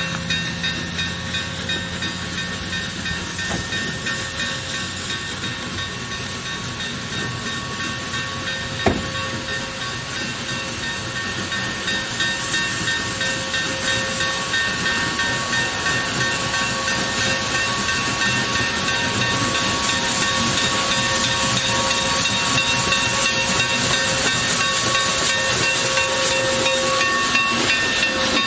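Union Pacific 3985, a 4-6-6-4 articulated steam locomotive, approaching under steam and drawing alongside: hissing steam with a beating exhaust of about two beats a second, growing steadily louder as it comes close. A single sharp knock about 9 seconds in.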